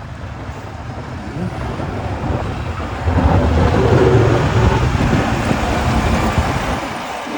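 Engine of a city snow-removal truck rumbling, swelling loudly about three seconds in as it moves off, then easing near the end.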